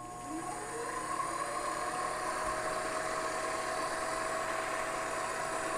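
Grizzly G0765 7x14 benchtop lathe starting up and spinning a brass slide tube in its chuck: a whine that rises in pitch over the first second as the motor comes up to speed, then runs steadily.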